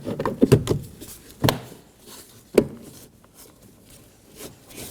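Plastic clicks and knocks of a master window switch being pressed down into a car's door trim panel, with a louder knock about a second and a half in and a sharp snap about a second later.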